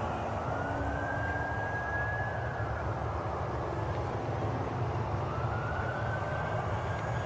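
Electric RC P-51 Mustang's SUPPO 3520/6 brushless motor and APC 12x10-E propeller whining as the plane flies, the pitch rising and then falling twice, over a steady low rumble.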